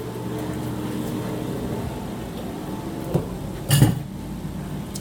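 A light knock, then about half a second later a louder, sharp clatter of something hard, like a door shutting or an object being knocked or set down.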